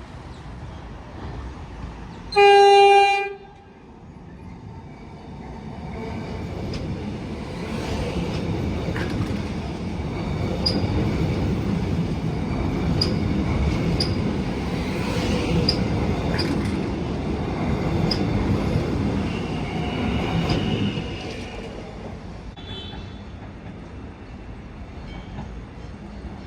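Alstom X'Trapolis electric suburban train sounds one short horn blast, then runs past with a swelling rumble and a string of wheel clicks over the rail joints, dying away about two-thirds of the way through.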